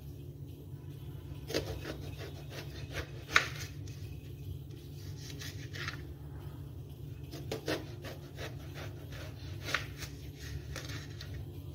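Kitchen knife slicing through a round eggplant into thick rounds and knocking on a plastic cutting board: a few scattered knocks over a steady low hum.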